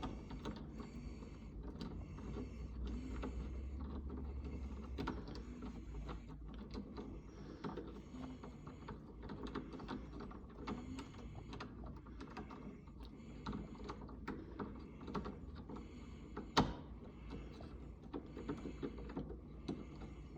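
A screw being driven into door knob hardware: a run of short, repeated mechanical bursts, roughly one a second, with a single sharp knock about 16 seconds in.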